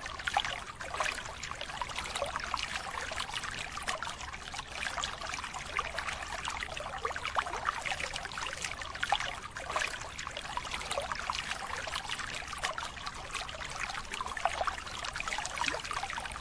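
Water splashing and churning without pause as a dense catch of fish thrashes in a drawn-in seine net: a steady mass of small, irregular splashes, with water streaming off the lifted net.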